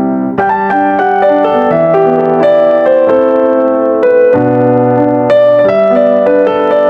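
Background piano music: a melody of notes played over sustained chords.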